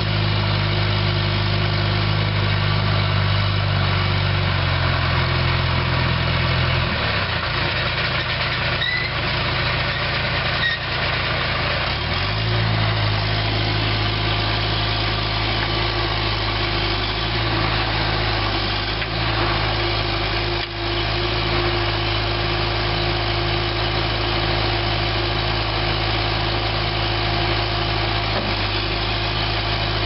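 John Deere 310E backhoe's four-cylinder PowerTech diesel engine running steadily while the loader and backhoe hydraulics are worked. Its note changes about seven seconds in and settles to a new steady pitch about twelve seconds in.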